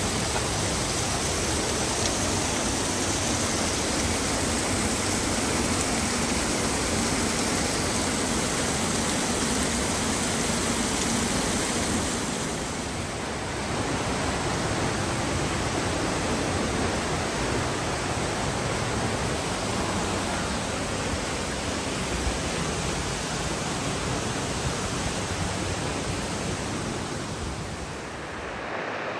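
Steady rush of falling water from a waterfall and the Cares river, with a brief dip and a change in tone about halfway through as a new stretch of water takes over.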